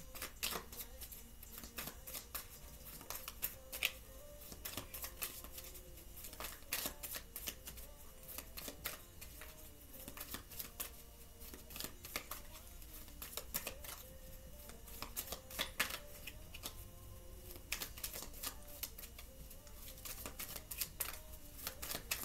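Tarot cards shuffled and handled by hand: a long run of irregular soft clicks and flicks as the cards slap and riffle against each other.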